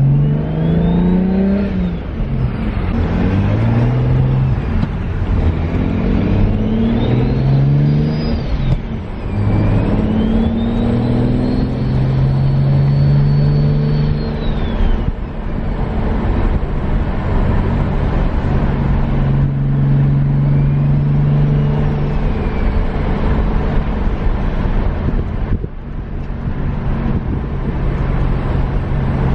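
BMW 335i turbocharged inline-six with a freshly fitted aluminium intake manifold, accelerating in a pull: the engine note rises several times and drops at each gear change, then settles into steadier running in the second half. A fainter high whine rises and falls along with it.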